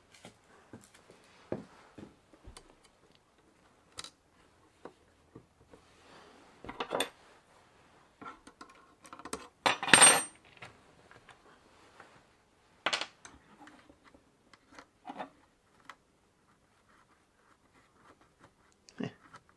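Scattered light metallic clicks and clinks of small steel hardware being handled as washers and nuts are fitted onto a saddle spring's stud. A steel open-end spanner clatters on the workbench about ten seconds in, the loudest sound, with smaller clinks near seven and thirteen seconds.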